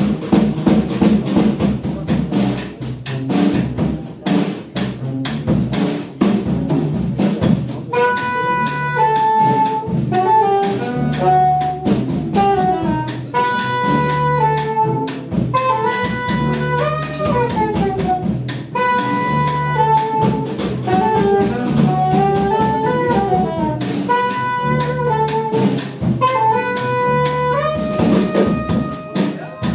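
Saxophone trio playing jazz live: drums and a low bass line, with the saxophone melody coming in about eight seconds in.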